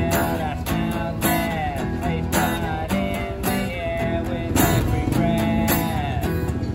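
Strummed acoustic guitar with a man singing over it, the strums coming in a steady rhythm.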